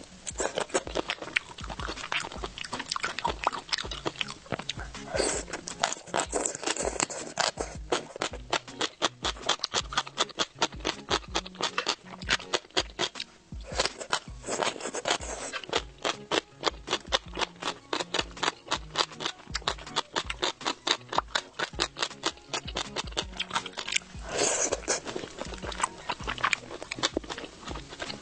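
Close-miked chewing of skewered bobo chicken foods in chili oil: a rapid run of wet clicks and crunches, with a few longer noisy smacking stretches. Soft background music with a steady bass line plays underneath.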